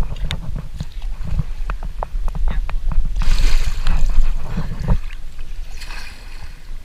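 Water splashing and sloshing around a bathing elephant, with many small splashes and a louder, hissing splash about three seconds in, over a steady low rumble.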